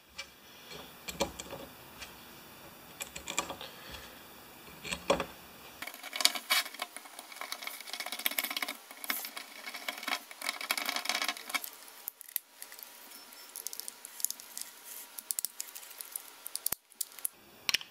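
Light metallic clicking and rattling of small hand-tool work as the four Torx T25 screws are driven back into the Briggs & Stratton carburetor. The clicks come fast and irregular, busiest in the middle stretch.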